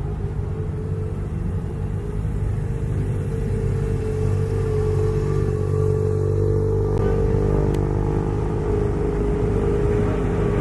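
A car engine running steadily at low revs as the car rolls slowly by, growing gradually louder.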